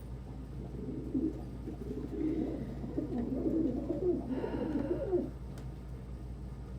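Domestic pigeons cooing in the loft, a low warbling coo that starts about a second in and stops just after five seconds.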